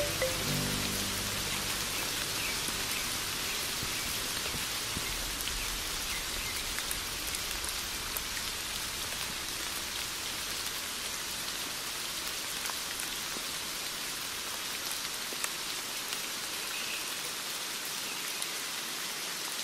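Steady rain falling, an even hiss with scattered small drop ticks. The last notes of the music die away in the first second.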